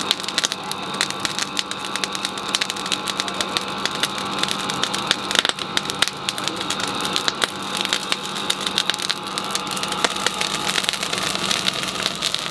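Forge fire under a blower's air blast: a steady hum with fast, dense crackling and clicking.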